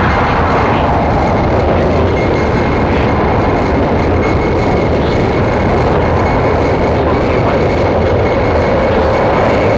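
Power-electronics noise music: a loud, dense, unbroken wall of rumbling noise with a thin steady high tone held above it. A brighter hiss thins out within the first second.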